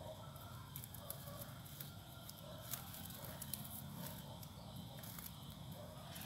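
Faint handling sounds of a cord being tied around the trunk of a potted desert rose: soft rustling with scattered light clicks and ticks, as the wobbly plant is lashed firmly so it stands upright.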